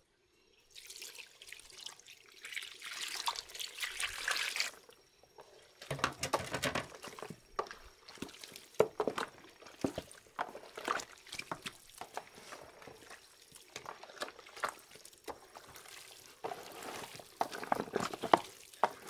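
Hands tossing and kneading raw chicken drumsticks in a plastic basin to work in the seasoning: irregular wet squelches and slaps of the meat. A rustling hiss runs for the first few seconds before the squelching starts.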